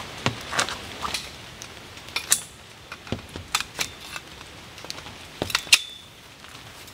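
Metal tent poles clinking and knocking together as the sections are handled and fitted: a series of sharp clinks, a couple of them ringing briefly.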